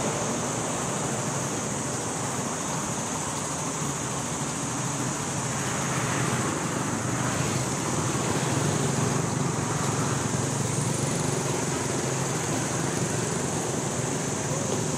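Steady outdoor background noise: a low rumble like distant traffic under a constant high hiss, swelling only slightly in loudness.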